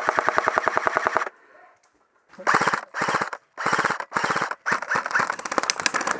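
Airsoft guns firing on full auto: a rapid burst of about a second and a half, a short pause, then four short bursts and nearly continuous fire near the end.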